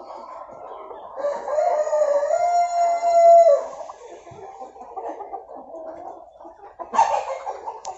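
A flock of hens clucking and murmuring, with a rooster crowing once, long and loud, from about one to three and a half seconds in. A sudden loud noise cuts in near the end.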